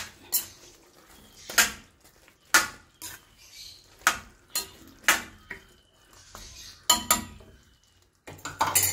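A metal spoon clinks and scrapes against a stainless steel pan as chicken pieces in thick gravy are stirred. There are about a dozen sharp clinks at irregular intervals.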